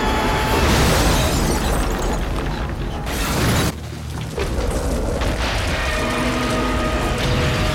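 Film sound effects of a giant monster's foot stomping down on a street: a heavy booming crash and rumble that cuts off suddenly about three and a half seconds in. Orchestral film music then comes in over continuing rumble.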